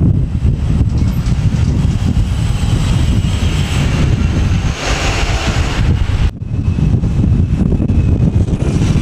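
A diesel coach driving past close by, its engine and tyres a steady low rumble that swells in hiss as it draws level, about halfway through.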